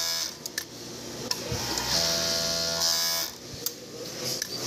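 Jack four-thread overlock sewing machine with built-in servo motor stitching at speed, a steady whirring hum with a high hiss. It stops just after the start, gives a few light clicks, then runs again for about a second and a half from about two seconds in.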